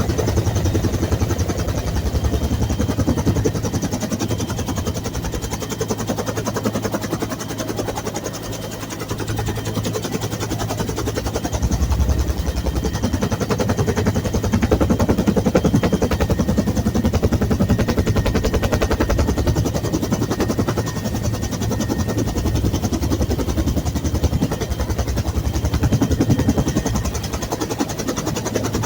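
Bell UH-1 Huey helicopter running, its two-bladed main rotor beating in a fast, even thud over the turbine's steady hum.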